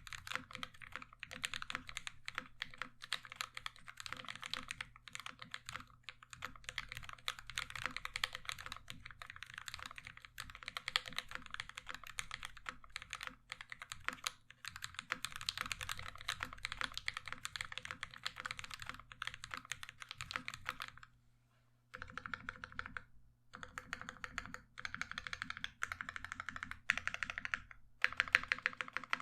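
Fast continuous typing on a mechanical keyboard with lubed and filmed Durock Mauve linear switches under ABS keycaps, on an aluminium plate with drawer-liner dampening. The typing breaks off briefly twice about 22 seconds in, then carries on.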